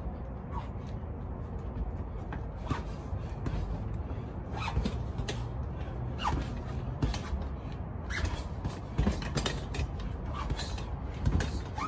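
Sneakers scuffing and squeaking on a concrete floor during quick footwork, with short scrapes, a couple of louder knocks near the end, and a steady low rumble of outdoor background noise.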